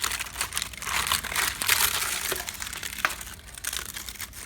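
Termites active inside infested wood: a dense, continuous crackling of many tiny clicks, the sign of a live termite infestation.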